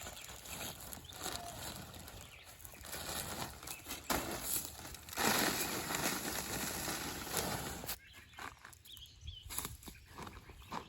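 Bagged mulch being poured out and spread by hand over laid-down feed bags: a rustling, scraping noise of wood mulch and plastic sacking, loudest from about halfway through for a few seconds.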